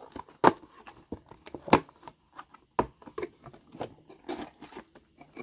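A cardboard trading-card box being torn open by hand: tearing and crinkling with three sharp snaps in the first three seconds and smaller rustles between them.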